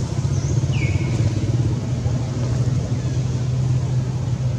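A steady low engine hum, like a motor running nearby, with a short falling high-pitched squeak about a second in.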